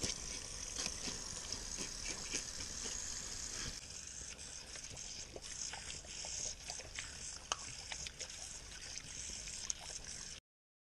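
Water running from a sink tap, with many small scrapes and wet clicks as peacock bass are scaled with a knife and then rubbed and rinsed by hand. The sound cuts off suddenly near the end.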